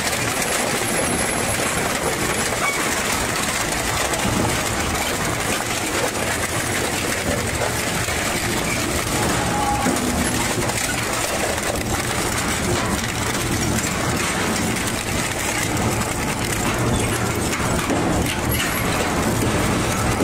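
Twin-shaft industrial shredder's hooked rotors chewing through wooden planks and a metal wheel rim: a loud, steady grinding with dense crackling and snapping throughout.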